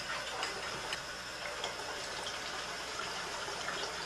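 A utensil stirring Easter egg dye in a cup, with faint scattered clinks, over a steady hiss.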